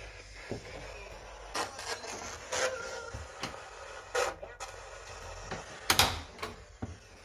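Irregular knocks, scrapes and creaks of someone moving on old wooden floorboards and against board walls, the loudest knock about six seconds in.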